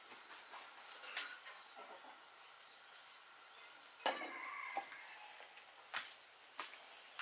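Light clinks and knocks of a spoon and small ceramic bowls being handled and set down on a wooden table, over faint outdoor background noise; the loudest is a knock about four seconds in, followed by a brief ringing.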